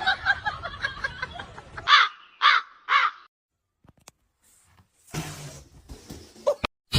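An animal calling three times in quick succession, about half a second apart.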